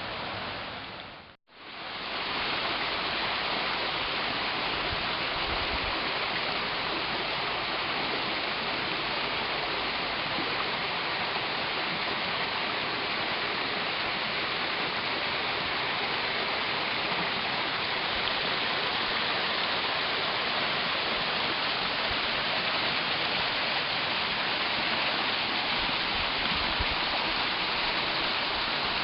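Waterfalls on a rain-swollen creek, the water rushing steadily at high flow. The sound briefly drops out about a second and a half in, then returns just as steady.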